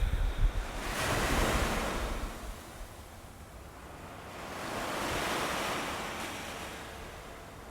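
Ocean surf washing in and out in slow swells, one building about a second in and another about five seconds in. A few low rumbling bumps sound in the first half second.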